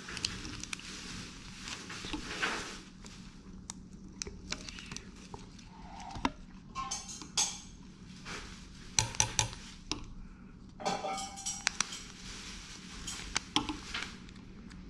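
Small objects being handled on a desk: irregular light clicks, taps and short scraping rustles, with no steady rhythm.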